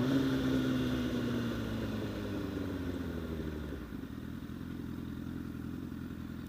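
Honda CBR1000RR sportbike's inline-four engine revving sharply at the start, then its pitch slowly falling as the bike slows, dropping to a quieter, steadier low note about four seconds in.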